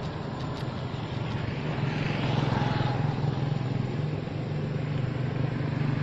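A motor vehicle's engine running with a steady low hum, growing louder about two seconds in.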